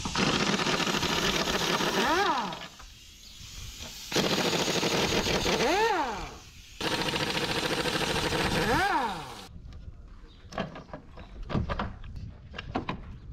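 Hand-held pneumatic tool on an air hose, run in three bursts of a few seconds each, its pitch sweeping up and back down as each burst ends. In the last few seconds it gives way to sharp metal clicks and knocks.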